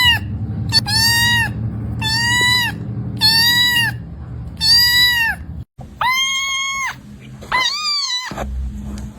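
A kitten meowing over and over, high-pitched calls about every second and a quarter, six of them, the last two longer with the final one wavering.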